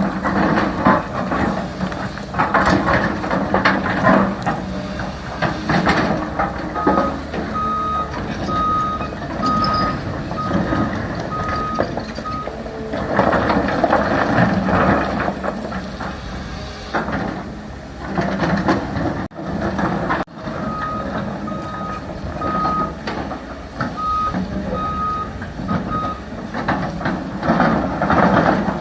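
CAT 320 excavator working, its diesel engine running and rising and falling with the load. A back-up alarm beeps steadily at one high pitch in two spells of about five seconds each: the first about seven seconds in, the second about twenty-one seconds in.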